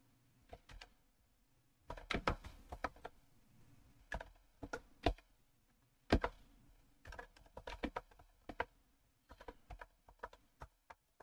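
Computer keyboard typing: quick runs of keystrokes broken by short pauses.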